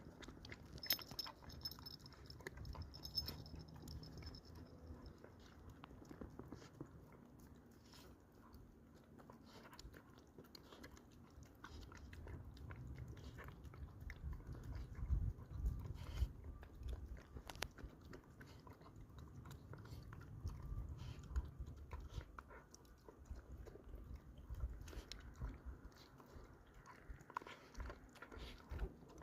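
Belgian Malinois puppy eating a meal of vegetables in bone broth, chewing and crunching with many irregular small clicks.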